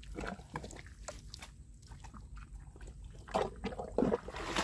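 Wet mud squelching and sucking as hands dig down into a mantis shrimp burrow in soft tidal mud, in short irregular bursts that grow louder near the end.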